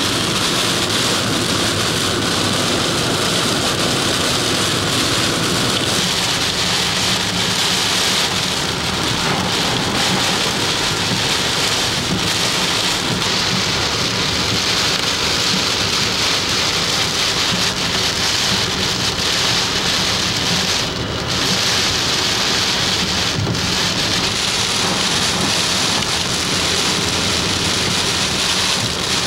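Heavy tropical-storm rain pelting a car's windshield and roof, heard from inside the cabin as a loud, steady hiss.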